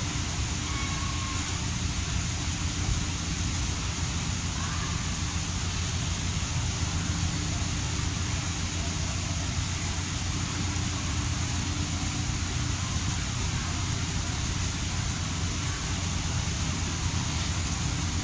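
Steady outdoor noise: a flickering low rumble under a constant hiss.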